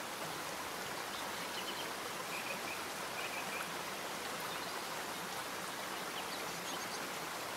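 Steady, even rushing of flowing water, with a few faint high chirps about a second in and again around three seconds in.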